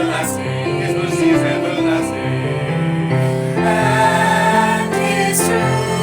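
Christian song: a choir sings sustained chords over instrumental accompaniment.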